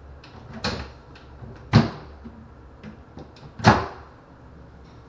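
A glass-panelled bathroom storage cabinet door being swung open and shut by hand. It knocks three times against its frame, the last two loudest, with lighter clicks between.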